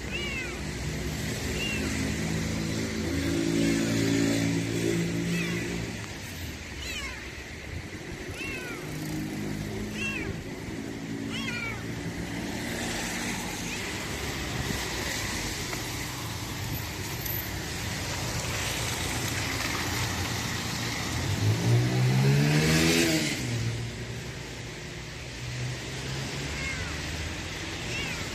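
A hungry stray kitten meowing in short, high cries every second or two while cars pass on the street. The loudest moment, about 22 seconds in, is a car engine rising in pitch as it accelerates past.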